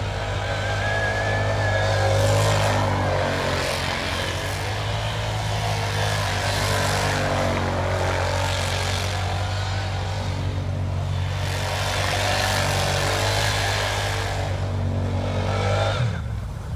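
Vehicle engine running steadily, its revs rising and falling again and again, as during drifting in snow.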